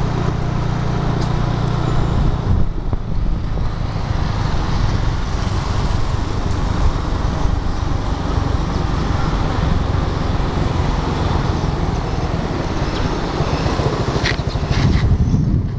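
Steady vehicle ride noise: an engine running under heavy wind rumble on the microphone, with traffic around. A few short sharp clicks sound near the end.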